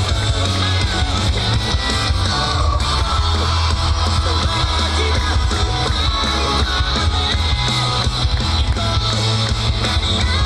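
Loud yosakoi dance music with singing and a heavy, steady bass line.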